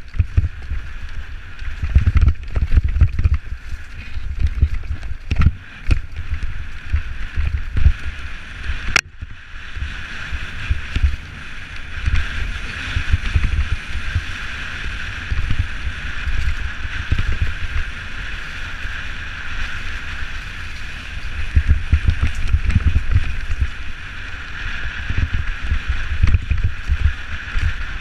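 Canyon Strive enduro mountain bike riding fast down a dirt trail: wind buffeting the camera microphone and the bike rattling over the rough ground in uneven surges, over a steady high buzz. One sharp knock about nine seconds in.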